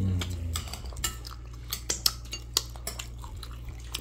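Tableware at a meal: chopsticks, spoons and dishes clinking in scattered light clicks and taps, about a dozen over a few seconds, over a steady low hum.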